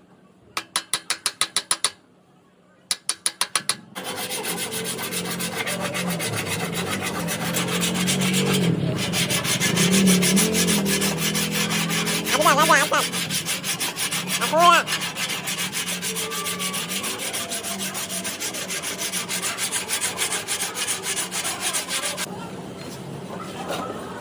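Rapid, even rubbing strokes of sanding or filing on a car body panel. They come in short bursts for the first few seconds and run continuously from about four seconds in, with two brief squeaks about halfway.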